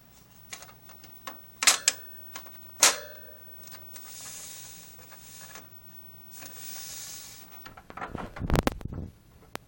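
Hollow plastic clicks and knocks of CritterTrail hamster-cage tubes and connectors being handled and pushed into place, with two spells of hissy rubbing midway and a low rumbling thump near the end.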